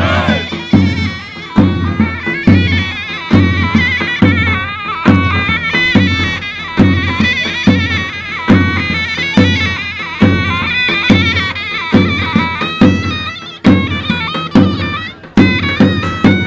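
Turkish folk dance music: a zurna (shrill double-reed shawm) plays an ornamented melody over a steady davul bass-drum beat of a little over one stroke a second.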